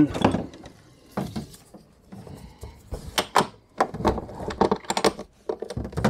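Irregular clicks, clinks and knocks of tie-down straps being handled: metal hooks and buckles catching on metal D-ring anchors and knocking against a portable air conditioner's plastic case. The knocks come thicker in the second half.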